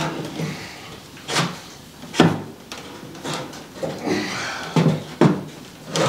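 Steel frame of a Hudson portable sawmill head being shifted by hand on a wooden pallet: scattered clunks and knocks, with a scraping slide about four seconds in.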